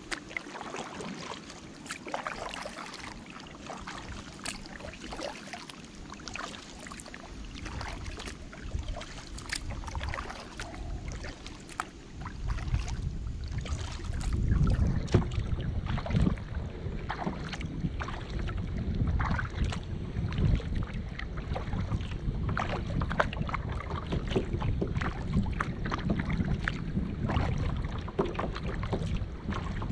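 Kayak paddle strokes: water splashing and dripping off the blade in many short, irregular splashes and drips. From about twelve seconds in, a low rumble of wind on the microphone grows louder under them.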